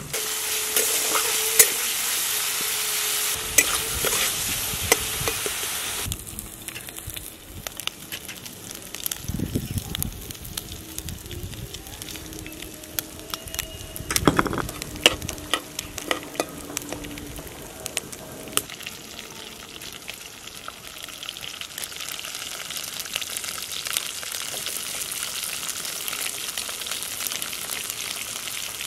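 Small prawns sizzling in hot oil in a metal karahi, with occasional knocks and scrapes of a spatula against the pan. The sizzle is loudest for the first six seconds, drops back, and builds again in the last third.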